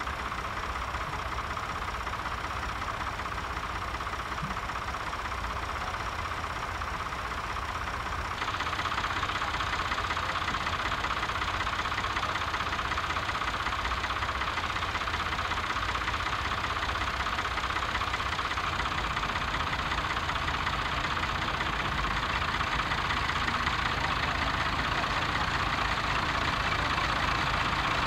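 Tractor engines running steadily. About eight seconds in the sound changes abruptly and gets a little louder.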